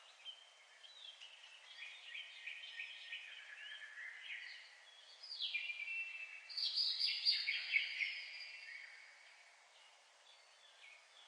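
Small songbirds singing and chirping, many quick overlapping chirps and trills, loudest and busiest in the middle and thinning out near the end.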